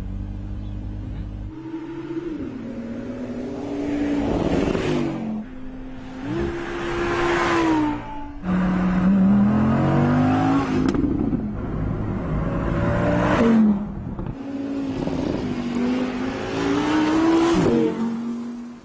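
2017 Audi R8 Spyder's V10 engine, a steady low drone at first, then accelerating hard from about two seconds in. Its note rises and drops sharply at each upshift, several times in a row.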